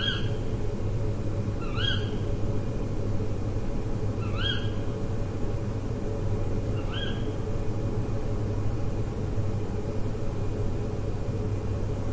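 A bird giving a short, upward-sliding call four times, two to three seconds apart, falling silent about seven seconds in, over a steady low rumble.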